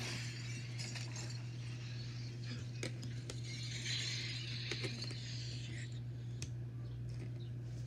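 Plastic toy figures being handled: a few light clicks and a rustle as they are moved about, over a steady low hum.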